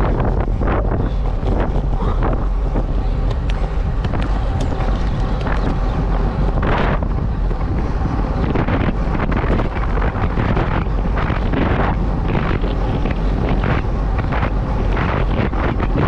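Heavy wind noise on the microphone of a bike-mounted camera on a road bicycle riding at about 40–45 km/h, a steady low rumble broken by frequent short crackles.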